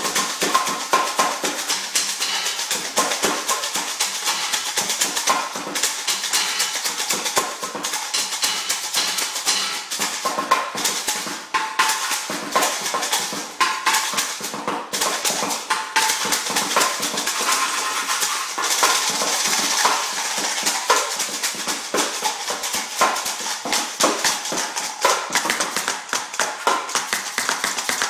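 Improvised kitchen percussion: household containers, among them a plastic jar with a lid, shaken like maracas in a dense, continuous rattling rhythm, with short pitched knocks mixed in.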